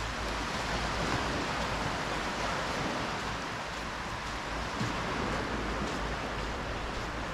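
Small waves washing up onto a flat sandy beach: a steady, even rush of surf with a slight swell a second or two in.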